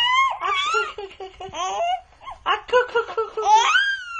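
Baby laughing: quick bursts of rapid laughter between high squeals, ending in one long squeal that rises and then falls.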